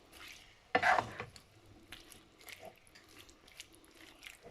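A little water poured from a glass into a wok, with a brief louder splash about three-quarters of a second in, then scattered light clicks and taps.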